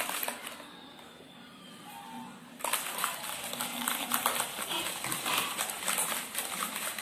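Ice rattling and clacking inside a steel shaker as it is shaken hard by hand to mix a shaken lime-and-mango drink. The rattling stops about half a second in, pauses for about two seconds, then starts again.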